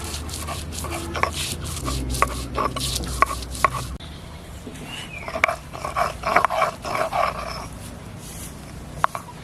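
Sharp knocks and clicks, then a run of short whining animal cries.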